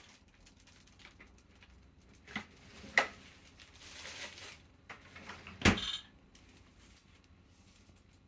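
A few sharp taps and knocks with soft rustling as a small pet owl pecks at minced raw meat on a plastic cutting board; the loudest knock comes about two thirds of the way through.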